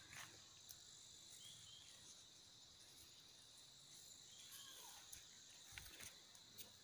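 Faint, steady high-pitched insect chorus, with a few soft clicks scattered through it.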